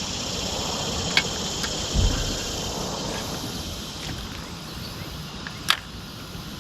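Steady chorus of insects, a continuous high hiss, with a low knock about two seconds in and short sharp clicks about a second in and near the end.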